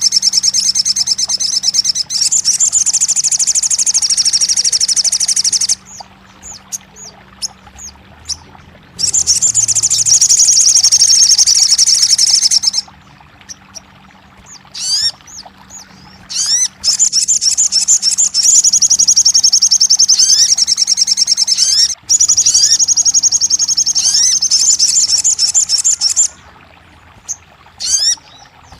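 Crimson sunbird (sogon) singing: long, very fast high trills of several seconds each, broken by short pauses filled with quick rising chirps.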